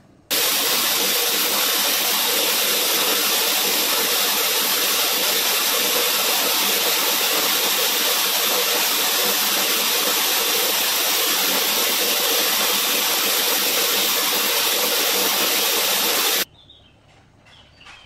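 Remez Model S hot-air styler with a curling barrel blowing air at a steady level, switched on just after the start and cut off abruptly about a second and a half before the end. A faint steady tone sits under the rush of air.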